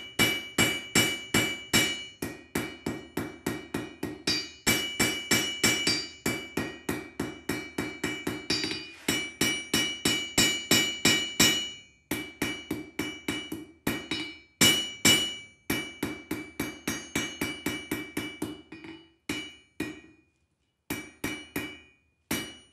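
Hand hammer striking a red-hot bar on an anvil, drawing it out into a taper: quick blows about four a second, each with a bright ringing anvil tone. The blows come in runs broken by short pauses and grow sparse near the end.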